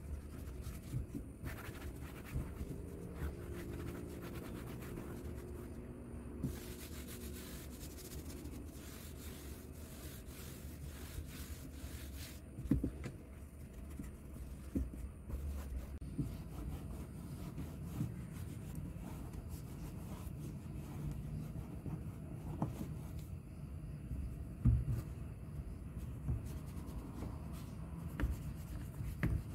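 Wet tissue rubbing and scrubbing over the fabric-covered inner door trim and plastic door handle of a Perodua Kancil, with a few light knocks against the panel.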